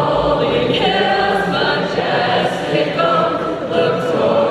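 Many voices singing a song together, like a large choir.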